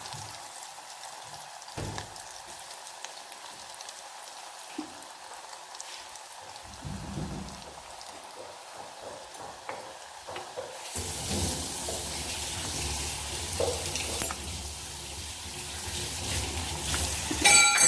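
Breadcrumb-coated chicken nuggets frying in hot oil in a pan: a steady sizzle that grows louder and fuller about two-thirds of the way through.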